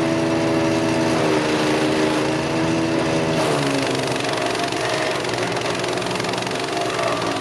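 Wood chipper's engine running steadily under a broad hiss, its pitch dipping slightly about three and a half seconds in.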